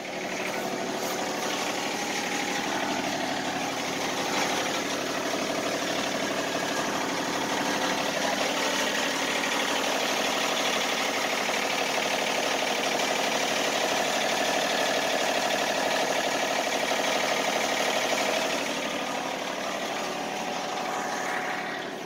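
Wood-Mizer LT50 Wide sawmill's engine running steadily, left running to warm the mill and thaw its frozen water-lube line. It grows louder through the middle stretch, then eases off near the end.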